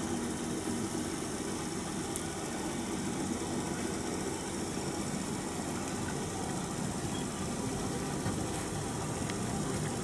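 Train's diesel engine running steadily, heard from inside the carriage as the train moves slowly, an even rumble with no pauses.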